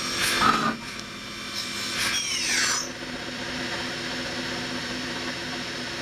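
CNC mill drilling a #40 (.098") pilot hole: a steady machine hum, with a brief louder rasp about half a second in and a short whine that falls in pitch between two and three seconds in.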